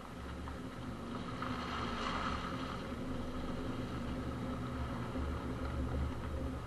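Subaru Crosstrek rolling slowly along a muddy dirt trail: a steady rumble of tyres and running gear, with water splashing as the front tyre ploughs through a muddy puddle a second or two in.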